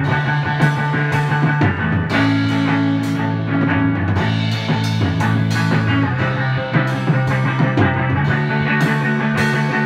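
Rock jam on electric guitar and drum kit: a Fender Stratocaster through a Fender Princeton Reverb amp plays sustained notes over a drum groove with repeated cymbal hits.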